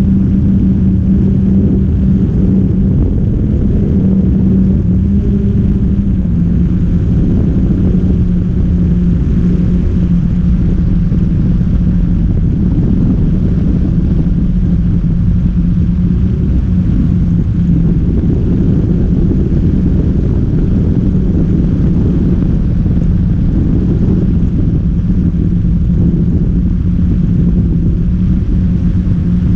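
A camera drone's motors and propellers giving a steady hum over a low rumble, heard from on board while it hovers and drifts. The pitch of the hum drops slightly about six seconds in.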